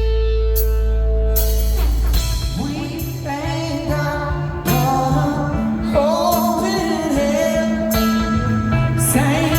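Live garage-rock music from a guitar-and-drums duo: a distorted electric guitar chord rings out for about two seconds, then a sung vocal line with wavering pitch comes in over the guitar and drums.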